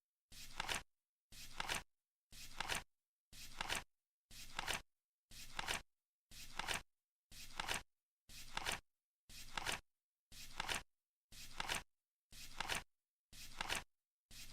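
Flip-clock timer sound effect: a short flapping click once every second, each a brief rustle that ends in a sharper snap, with silence between.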